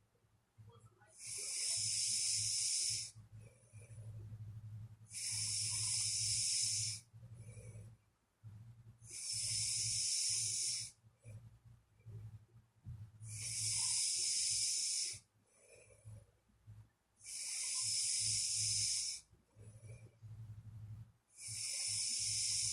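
A sleeping person snoring and breathing in a steady rhythm: a hissing breath about every four seconds, each lasting about two seconds, six in all. A low steady hum runs underneath.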